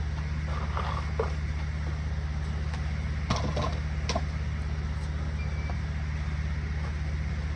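A steady low mechanical hum throughout, with a few light clicks and rattles of parts being handled about half a second in, around a second in, past three seconds and past four seconds.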